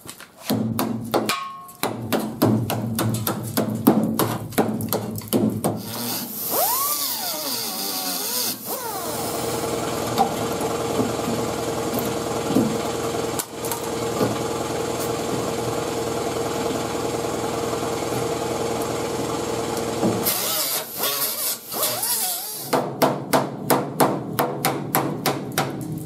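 Hand hammer knocking on the rusted sheet metal of a wheel arch, a quick run of blows at the start and again near the end, about three a second. Between them a steady mechanical hum runs for about ten seconds.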